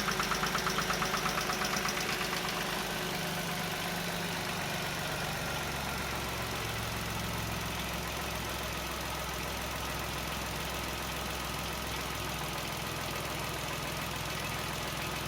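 Chevrolet Onix Plus engine running cold with a rhythmic knocking, about five knocks a second, that dies away about two seconds in, leaving a steady idle. The owner says this knock appears on the first cold start of the morning when the brake is applied.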